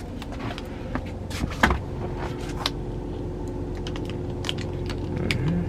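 Small clicks and light taps of objects being handled, with one louder knock about a second and a half in, over a steady low hum.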